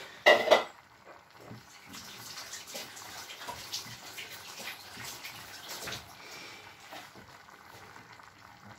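Clay tagine simmering on the stove, its contents bubbling and sizzling with a faint, irregular crackle. A brief loud knock about a third of a second in.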